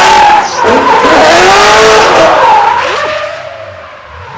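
Drift car passing close in a slide, its engine revving high with pitch rising and falling while the tyres screech. About three seconds in the revs drop sharply and the sound fades away.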